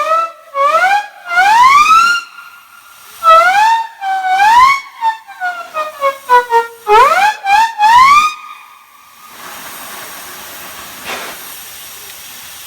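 Whistle blown in a run of short toots, each sliding up in pitch as it opens, with one long blast in the middle that slides steadily down. After about nine seconds the whistle stops and a steady hiss remains.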